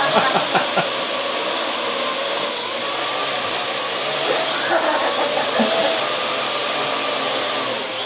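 Parrot AR.Drone quadcopter's four electric rotors whirring as it hovers and manoeuvres: a steady airy whir with a motor whine that wavers in pitch as the rotors speed up and slow down.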